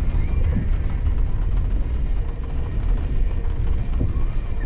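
A vehicle driving on a dirt track, a steady low rumble of engine and tyres on rough ground.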